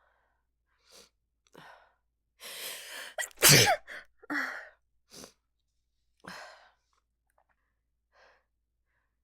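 A woman's sneeze. A few short breaths and a drawn-out breathy intake build up to one loud vocal sneeze about three and a half seconds in. Several softer breaths follow.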